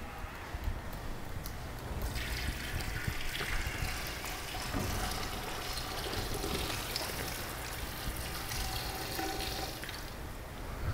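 Water poured from a jug into a large stainless steel stockpot of adobo braising liquid: a steady splashing trickle that picks up about two seconds in and eases off near the end.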